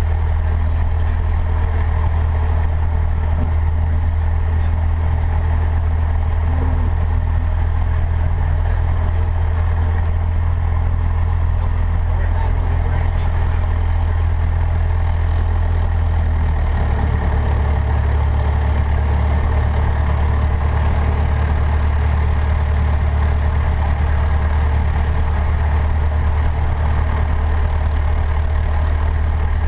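Cessna 152's four-cylinder Lycoming O-235 engine running steadily at idle after start, heard from inside the cockpit. Its low drone shifts in pitch about seventeen seconds in.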